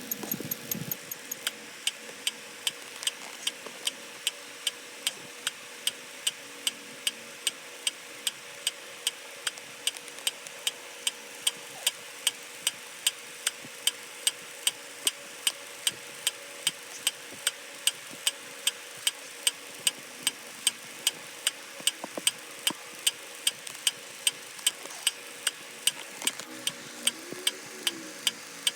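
A sharp click sound effect repeating evenly, about three times a second, over a faint steady hum.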